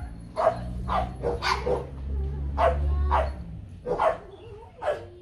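Dogs barking repeatedly, short sharp barks at roughly two a second with uneven gaps.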